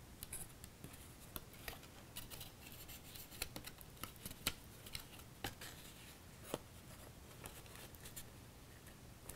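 Cardstock box card handled in the hands: faint, irregular paper rustles and crisp little clicks as the freshly glued layer is held and turned.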